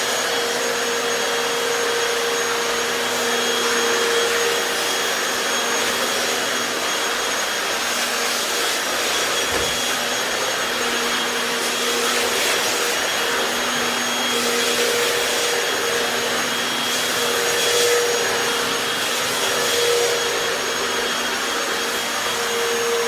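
Hoover FloorMate Deluxe hard-floor wet cleaner running steadily in dry mode, its suction motor humming while the scrub brushes are raised and stopped, pulling up a stubborn piece of tomato. The motor's tone wavers slightly as the machine works the floor.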